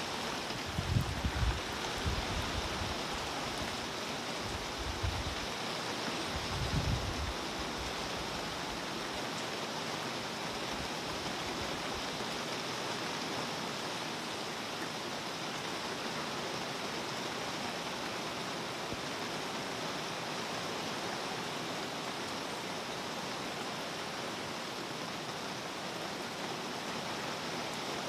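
Steady rain falling on a pond's surface, an even hiss of many drops. A few brief low rumbles come in the first seven seconds.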